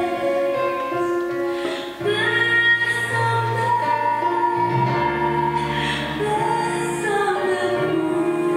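Slow music with a woman's voice singing long held notes over instrumental accompaniment; a low note comes in about two seconds in.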